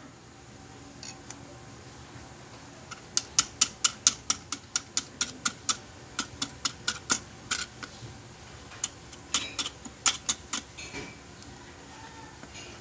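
Knife blade scraping and picking crumbled old clutch lining off the clutch of a high-speed sewing machine's clutch motor. It comes in runs of quick sharp scrapes, about five a second, with pauses between. The lining has disintegrated and is being chipped away.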